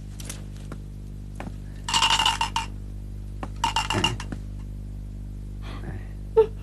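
Metal coins clinking against each other on a wooden table as they are counted and stacked: two quick runs of rapid clinks, about two and four seconds in, then a single sharp knock near the end.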